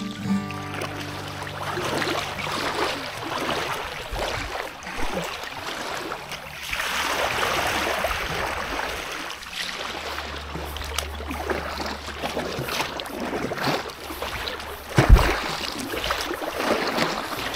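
River water splashing and lapping under paddle strokes from a kayak or paddleboard, with a low wind rumble on the microphone for a few seconds past the middle and one sharp knock about fifteen seconds in.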